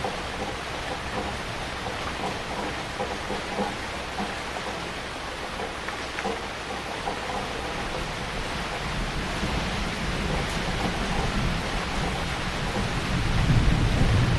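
Heavy rain falling steadily, with a low rumble of thunder building in the second half and loudest near the end.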